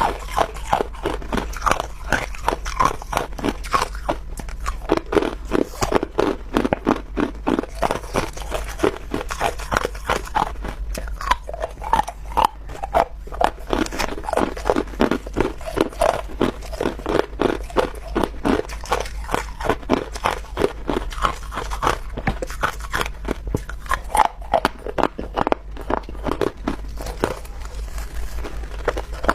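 Clear ice chunks being bitten and chewed close to the microphone: a dense, irregular run of loud, sharp crunches.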